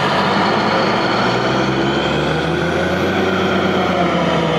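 Diesel engine of a truck-mounted borewell drilling rig running loud and steady under heavy load, its pitch climbing a little in the second half.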